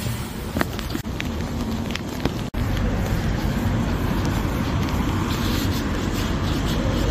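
Wind buffeting a phone's microphone as a steady low rumble, louder from about two and a half seconds in, with street traffic in the background.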